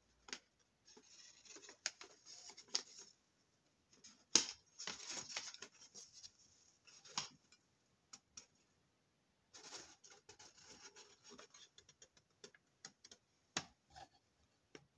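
A sheet of paper being folded and handled: spells of rustling and crinkling, with sharp crackles as creases are pressed in.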